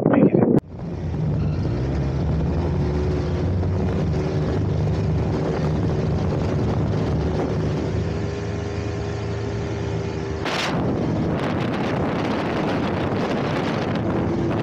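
Polaris WideTrak snowmobile's two-stroke engine running steadily under way, with a brief burst of noise about ten seconds in.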